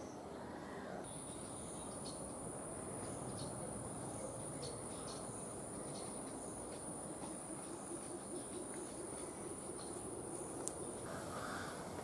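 A steady, high-pitched insect call starts about a second in and stops shortly before the end, over a soft background hiss with scattered faint ticks.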